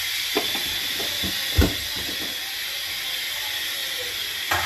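Steady hiss of steam venting from a pressure cooker as its pressure is released. A few short knocks sound over it, the loudest about one and a half seconds in.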